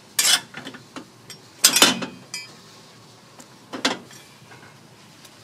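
Metal bungeoppang molds and utensils clanking: three loud clanks about two seconds apart, with lighter clicks and taps between.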